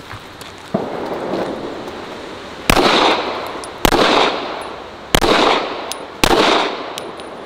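Five handgun shots fired at a steady pace, roughly a second apart, each trailing off in a long echo; the first shot is quieter than the other four.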